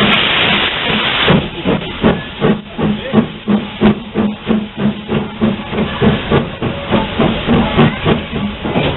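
0-8-0 steam tank locomotive letting off a steady hiss of steam. About a second and a half in, its exhaust chuffs begin at about three beats a second as it gets under way, with the hiss continuing beneath.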